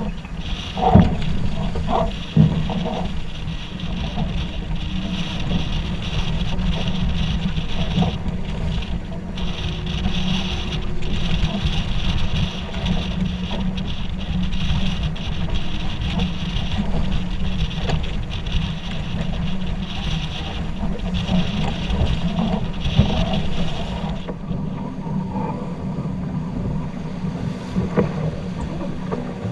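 Heavy wind buffeting the microphone aboard a C&C 30 sailboat under sail, a steady low rumble with a hiss over it that eases about 24 seconds in. A few knocks in the first three seconds.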